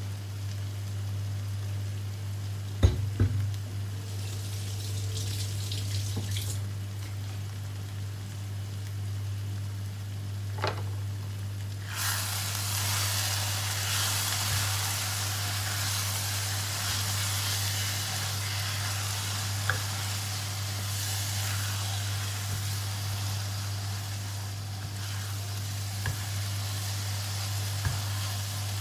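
Dried anchovies and chilli paste (sambal) sizzling in a wok as they are stirred with a wooden spatula; the sizzle comes up loudly about twelve seconds in and keeps on. A sharp knock sounds about three seconds in, over a steady low hum.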